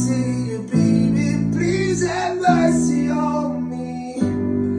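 Acoustic guitar strumming sustained chords that change three times, with a voice singing a drawn-out line over them.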